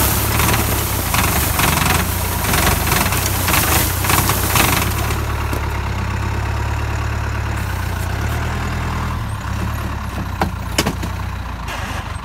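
Tractor engine running while a tractor-mounted olive trunk shaker vibrates the tree, a loud rattling noise of shaking branches and olives for about five seconds. The shaking then stops and the engine runs on steadily, with a couple of sharp knocks near the end.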